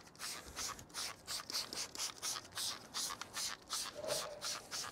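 Hand trigger spray bottle pumped quickly again and again, about three short hissing sprays a second, misting pre-wash cleaner onto a car's rear bumper to pre-saturate the dirt.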